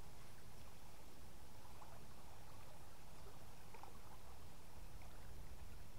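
Flooded river water flowing steadily past the bank: a faint, even rush with no break.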